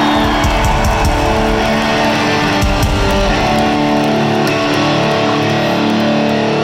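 Electric guitars played live through an arena sound system, sustaining loud chords that shift a couple of times.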